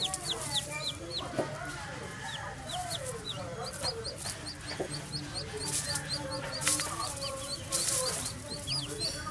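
Newly hatched chicks peeping rapidly and continuously in short high falling notes, with a mother hen clucking lower underneath and a few brief rustles.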